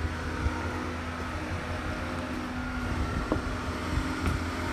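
A steady low machinery hum and rumble, with a few light knocks.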